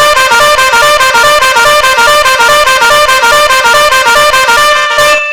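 Loud music: a brassy, horn-like melody of quick short notes that step up and down in pitch, with a brief dip near the end.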